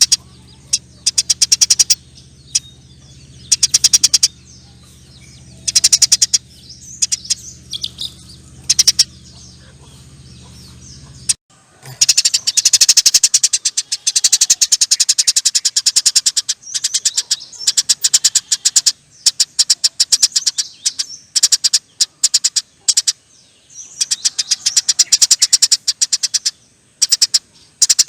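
Eurasian tree sparrow chattering: long, rapid trills of high chirps in repeated bursts, the longest running for several seconds. A low steady hum lies underneath and cuts off suddenly about 11 seconds in.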